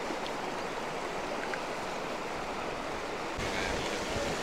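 Shallow stream running over rocks and gravel, a steady rushing hiss. A low rumble joins it a little past three seconds in.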